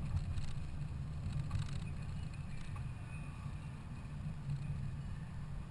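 Low, steady rumble of a car driving, heard from inside the cabin: engine and road noise, with a couple of faint clicks in the first two seconds.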